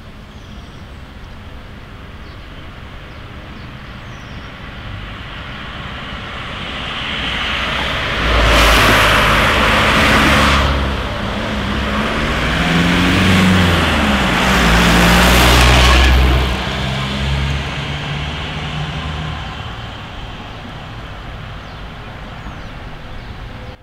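Street traffic: a steady background of road noise, with a heavy motor vehicle going by in the middle, its engine note rising and falling as it passes, then fading away.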